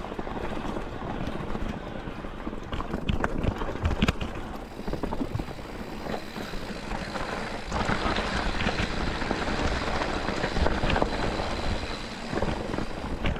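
Mountain bike descending a loose, rocky downhill trail: tyres rolling over rocks with repeated knocks and rattles from the bike, and wind buffeting the microphone.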